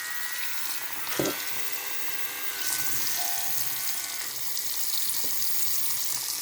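Bathroom sink tap running steadily, with the faint whine of a small electric body shaver held in the stream. There is a brief knock about a second in.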